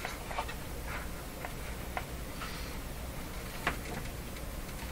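Scattered light clicks and taps at uneven spacing, from handling the radio chassis and its power cord, over a low steady hum.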